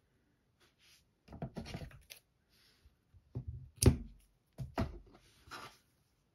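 Yarn and a crocheted piece being handled: short scraping, rustling rubs, with a sharp click from a pair of scissors just under four seconds in, the loudest sound.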